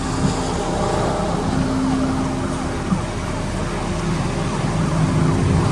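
Steady car engine and road noise heard from inside the cabin, a low even hum.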